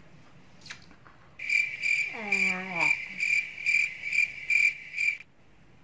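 Cricket chirping, a high chirp pulsing about twice a second, that starts and stops abruptly: the stock 'awkward silence' cricket sound effect laid over a pause. A short falling voice sound comes near the middle.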